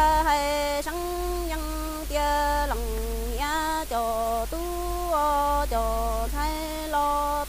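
A woman singing Hmong kwv txhiaj, traditional sung poetry, unaccompanied: one voice holding each note steady and stepping between a few pitches, often moving down from a higher note.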